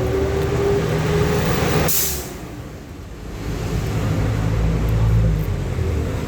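Vehicle engine rumble with a sharp, short hiss of air about two seconds in, then a heavier low rumble a couple of seconds later.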